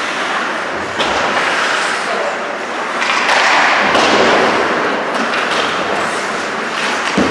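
Ice hockey play on an indoor rink: skate blades scraping the ice and sticks and puck clacking, with sharp knocks about a second in and near the end, and players calling out.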